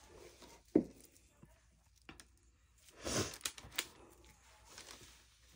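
Handling noises: a single sharp knock about a second in, then a short run of rustling and light taps about three seconds in.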